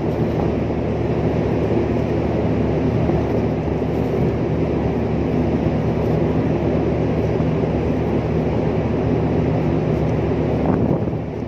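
Steady low drone of a large ship's machinery, a constant hum with several even tones underneath a noisy rumble.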